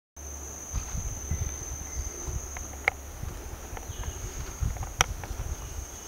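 Insects calling in one steady, unbroken high-pitched drone. Under it come irregular low thumps, and two sharp clicks at about three and five seconds.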